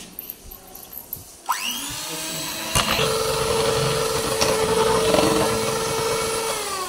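Electric hand mixer whipping cream. The motor starts about one and a half seconds in with a rising whine, gets louder about a second later and runs steadily, then begins slowing near the end.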